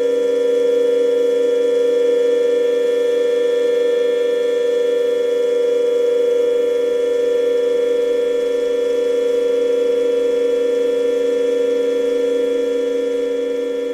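Experimental music played on cymbals: a dense, unbroken drone of sustained ringing cymbal resonances, held at fixed pitches with many higher overtones, easing slightly near the end.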